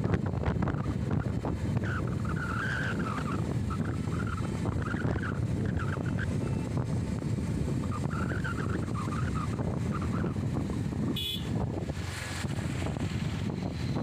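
Wind rushing over the microphone and the steady running noise of a motorcycle riding along at speed.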